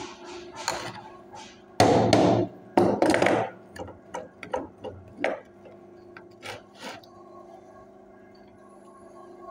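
Metal parts of a starter motor being handled while its pinion gear is fitted, with scattered light clicks and knocks. Two louder rasping scrapes of under a second each come about two and three seconds in.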